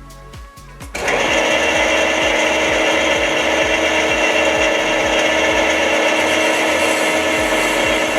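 Metal lathe starting up about a second in and running steadily while the tool cuts a small chamfer on the inside of a brass bushing.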